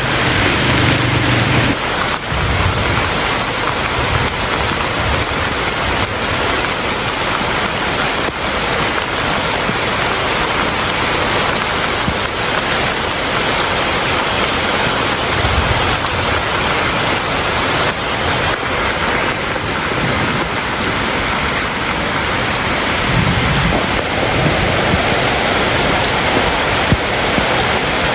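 Steady heavy rainfall, a dense even hiss of rain on surfaces. A few low rumbles come through: near the start, about halfway, and again later.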